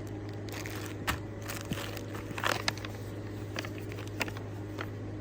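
Scattered light clicks and rustles of handling, the largest about a second in and again midway, over a steady low hum.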